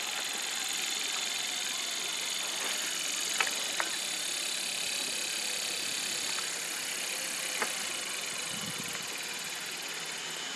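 Steady outdoor background hiss and hum, with a few short sharp clicks about three and a half seconds in, again just after, and near seven and a half seconds.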